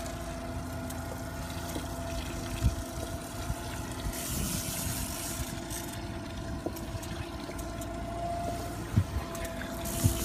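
Boat's outboard motor running steadily at low speed, a constant hum, with two stretches of hiss and a few dull knocks.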